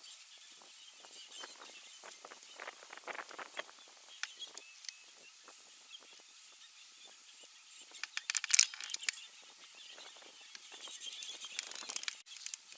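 Outdoor bush ambience: scattered short crackles and chirps, with a louder cluster of crackling about eight seconds in, over a thin steady high tone.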